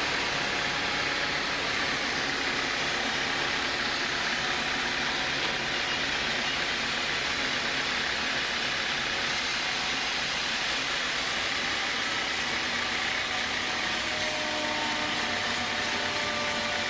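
Sawmill machinery running steadily.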